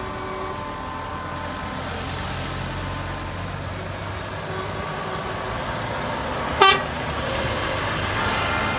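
Lorries in a slow convoy driving past with engines running, and steady horn tones sounding throughout. About two-thirds of the way in comes one short, loud truck-horn blast.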